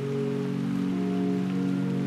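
Background music of soft, sustained chords that change slowly, over an even hiss.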